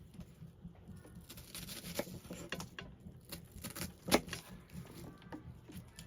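Scattered light clicks and knocks at an irregular pace, with one sharper knock about four seconds in.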